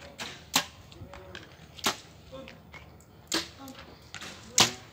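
Compound bows being shot one after another: four sharp snaps of released bowstrings, a little over a second apart, the last the loudest.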